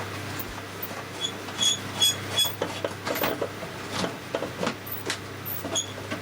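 Steady low hum from a valve radio's speaker, with irregular scratchy crackles and clicks and several short high chirps, typical of a dirty or intermittent connection in the set.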